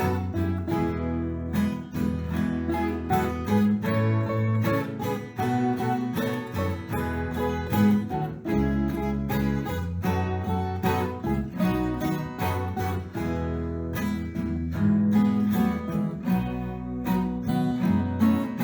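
Acoustic guitar music, plucked and strummed in a steady rhythm.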